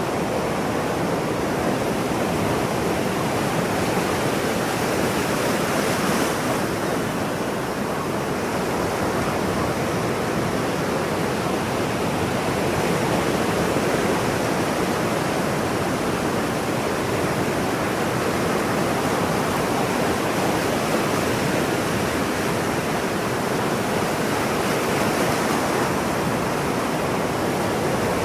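Ocean surf washing steadily on a shore, a continuous hiss of breaking waves that swells gently in loudness.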